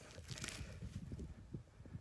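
Faint rustling of grass and soft, irregular low knocks as a parasol mushroom is pulled up by the base of its stem, with a brief louder rustle about half a second in.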